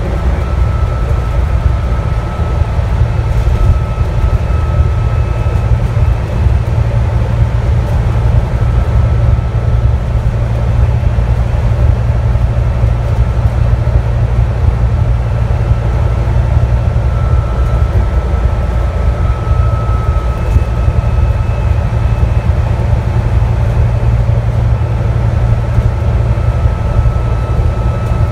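Scania N250UD bus on the move, heard inside the cabin: its five-cylinder diesel and ZF Ecolife automatic gearbox run at a steady cruise with a deep constant drone and tyre and road noise. A thin high whine fades out midway and returns.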